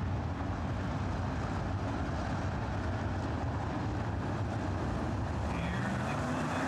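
A pack of 410 winged sprint cars racing on a dirt oval, their 410-cubic-inch V8 engines running hard together in a steady, dense din. Near the end one car's engine note rises as it passes close.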